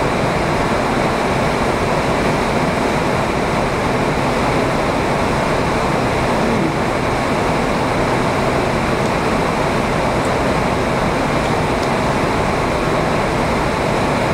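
Heavy rain falling, a steady loud hiss that holds even throughout.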